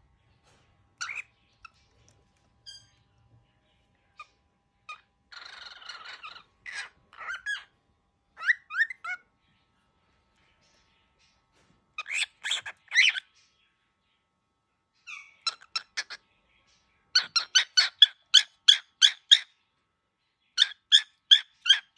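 Baby cockatiel giving short squeaky calls and a breathy hiss about five seconds in, then quick runs of sharp, repeated squawks of about four a second near the end: angry, defensive calling.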